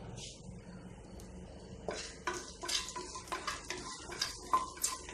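A wooden spatula stirs whole spices, ginger, green chilli and curry leaves sizzling in hot ghee in an aluminium pressure cooker. The scraping and crackling begin about two seconds in and go on in quick, irregular strokes.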